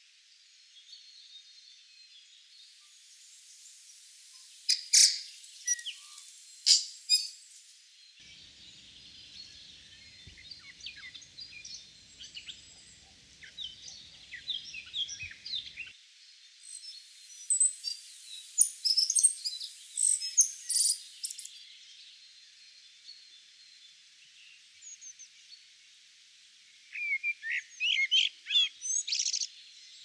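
Tui singing in several separate bursts of quick high notes, glides and sharp clicks, with pauses between them over a faint steady high hiss.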